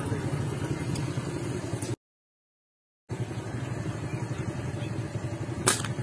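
A low steady rumble that cuts out completely for about a second. Near the end comes one sharp snap of a slingshot being shot at a bird.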